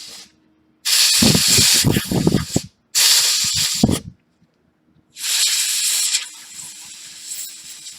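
Canned compressed air sprayed in three bursts of loud hiss, the last one longer and fading out, with a low rumble of air blast under the first two, blowing cleaned flux off a phone logic board.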